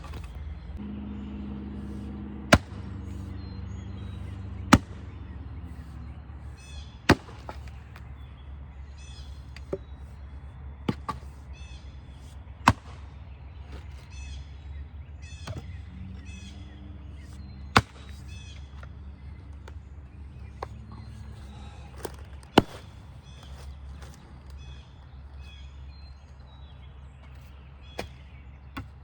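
Sharp single strikes at uneven intervals, roughly every two to three seconds, about a dozen in all, with birds chirping between them.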